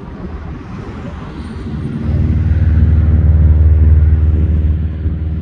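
RAF Chinook tandem-rotor helicopter approaching to land, its rotors giving a heavy, rapid low thudding that grows much louder about two seconds in.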